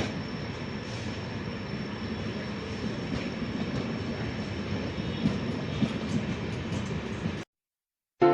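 Train hauled by a WAP7 electric locomotive running, a steady rumble with a continuous high squeak over it; the sound cuts off abruptly about seven seconds in.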